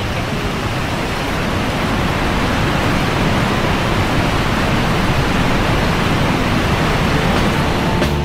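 Steady rushing noise of a waterfall, an even hiss across all pitches that grows a little louder in the first couple of seconds.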